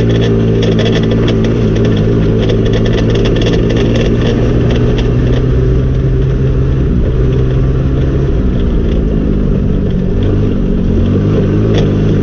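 Go-kart engine running at a steady speed under way, with scattered rattling clicks. The engine note drops about eight seconds in and climbs again near the end.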